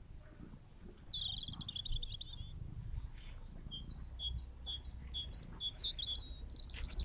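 A small songbird singing: a rapid trill about a second in, then a quick run of short notes alternating between two pitches, then another trill near the end.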